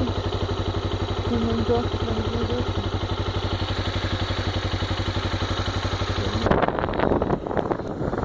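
Honda XRE single-cylinder motorcycle engine running steadily with an even firing pulse. About six and a half seconds in, the engine sound cuts off suddenly and gives way to gusty wind noise on the microphone.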